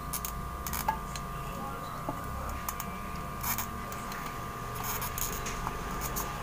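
Light clicks and scrapes of a soldering iron tip on the solder joints of a CRT TV's power-supply circuit board while a filter capacitor is being desoldered, over a steady low hum and a faint steady whine.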